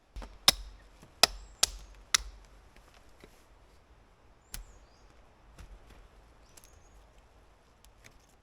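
Hatchet chopping into wood: four sharp chops in about two seconds, then a single chop a couple of seconds later, followed by a few light knocks.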